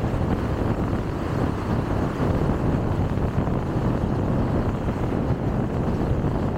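Steady road noise of a car travelling at speed: a constant low rumble of tyres and engine with no distinct events.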